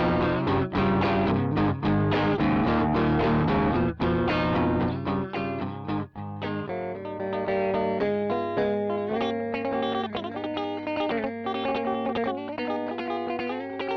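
Looped electric guitar part played through a Caline British Sound distortion pedal: dense distorted chords with short, regular stops, changing about six seconds in to separate picked notes over a held low note.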